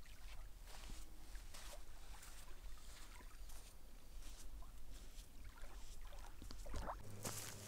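Small waves lapping softly and irregularly at a lakeshore, over a low steady rumble. Near the end, sharper footsteps on a leafy forest floor begin.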